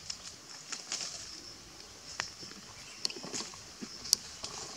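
Scattered small clicks and rustles in dry leaf litter as macaques shift about, over a steady high-pitched hiss; the sharpest click comes a little after four seconds in.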